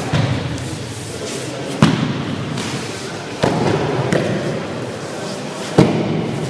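Aikido breakfalls: bodies and hands slapping down onto tatami mats, three thuds about two seconds apart, over a steady background din in a large hall.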